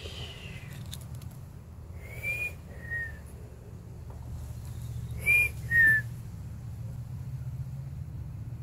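A person whistling short two-note calls, a higher note then a lower one, three times over, the last pair the loudest. A steady low hum runs underneath.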